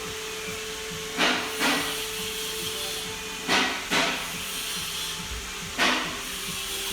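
Short blasts of compressed-air hiss, five in all, the first four in pairs, over a steady faint tone. They fit an air check of the clutch pistons in a rebuilt VW 01P automatic transmission.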